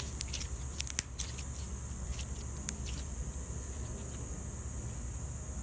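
Slime being squished and poked by hand, giving a few sharp clicks and pops, a cluster about a second in and one more near the middle, over a steady hiss.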